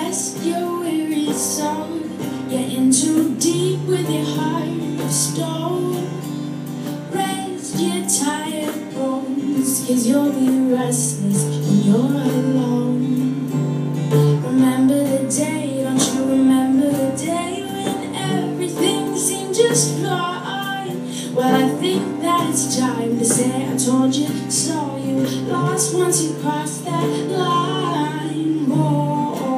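Live acoustic song: a strummed acoustic guitar with a woman singing, and bongos played by hand in a steady rhythm.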